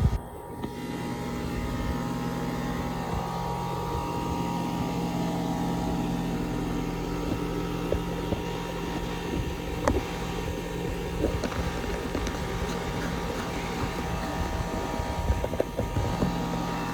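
Goodman 3.5-ton central air conditioner's outdoor condenser running in cool mode: a steady hum from the compressor and condenser fan, with a few faint clicks about ten seconds in.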